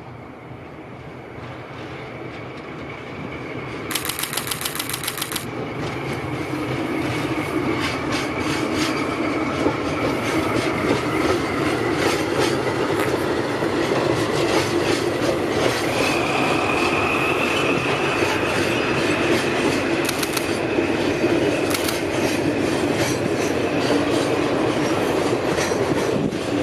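Freight train hauled by a DD56 diesel locomotive running past, with wheels clacking over the rail joints and a sustained squeal of wheels on the rails. It grows louder over the first several seconds, with a brief fast run of clicks about four seconds in, then stays loud.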